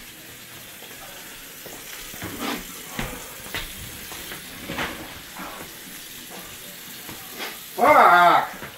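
Kitchen tap running into the sink, with a few light knocks as things are handled at the sink. Near the end comes a loud, short wordless vocal cry.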